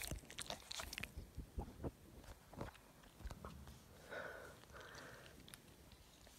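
A dog's mouth and nose right at the microphone: wet clicks and smacks of sniffing and mouthing, with knocks of the phone being handled, busiest in the first second. Two soft breathy sounds follow about four and five seconds in.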